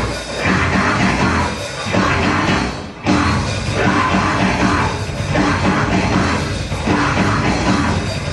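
Live rock band playing with drums and keyboards; the music drops off briefly about three seconds in, then comes back in at full loudness.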